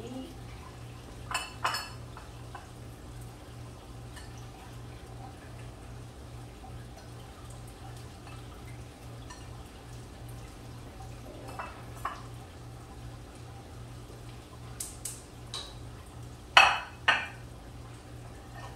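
Dishes clattering as a plate of food is handled and set down on a stone countertop: scattered clinks and knocks, with the loudest pair near the end. A steady low hum runs underneath.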